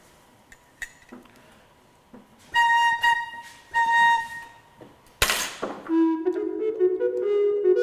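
A single organ flue pipe is sounded twice on the same whistle-like note, each time for well under a second, with faint clicks of handling before it. Just after five seconds comes a brief loud burst of noise. Then flute-toned music begins, its melody climbing in pitch.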